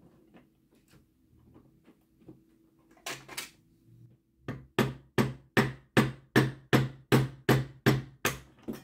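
Small hammer tapping a broken drill bit, used as a punch, to drive a flywheel off a model locomotive's motor shaft held in a vise. Sharp metal taps: two about three seconds in, then a steady run of about a dozen, roughly two and a half a second.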